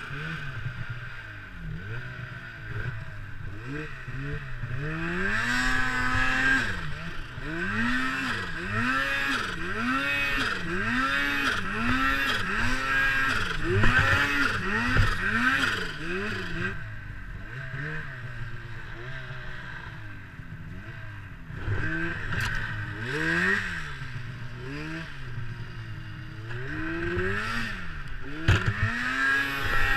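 Turbocharged Polaris Pro RMK snowmobile's two-stroke engine, throttled up and down again and again as it is ridden through deep snow among tight trees. For about ten seconds its pitch rises and falls roughly once a second, then in slower swells, with a few sharp knocks from the sled.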